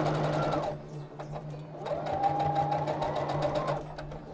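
Brother domestic electric sewing machine stitching a hem. It runs fast and stops under a second in, then starts again about two seconds in, speeds up and runs steadily for about two seconds before stopping. A few light clicks follow as the fabric is handled.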